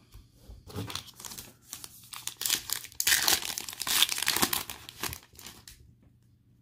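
Foil wrapper of an Illusions NFL trading card pack crinkling as it is picked up and torn open, the crackling loudest about three to four and a half seconds in and dying away near the end.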